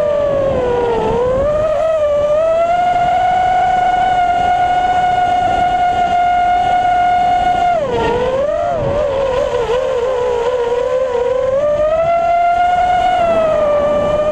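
FPV racing quadcopter's electric motors and propellers whining steadily at high throttle. The pitch dips briefly about a second in and again about eight seconds in as the throttle is eased, then climbs back.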